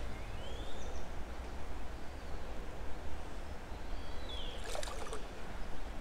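Steady riverside ambience of flowing water with a low rumble underneath. Two faint whistles sound, one near the start and one about four seconds in, and a brief cluster of clicks comes about five seconds in.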